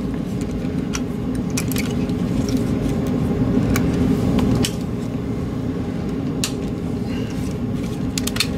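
Scattered small plastic clicks and taps as a Logitech G900 gaming mouse is taken apart by hand, its side grip pieces coming off, over a steady low hum that drops slightly just under five seconds in.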